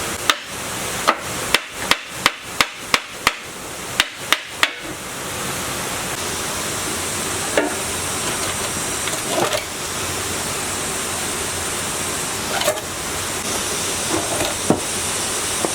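A hammer striking metal about ten times in quick succession, two to three blows a second, then stopping about five seconds in. A few scattered knocks follow over a steady hiss.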